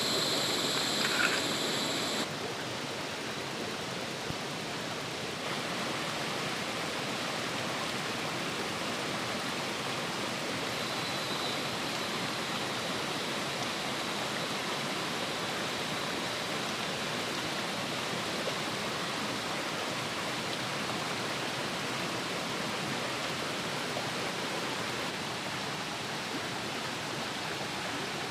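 Shallow, clear forest stream running over stones: a steady, even rush of flowing water. A few light clicks and a high steady tone come in the first two seconds, and the tone stops abruptly.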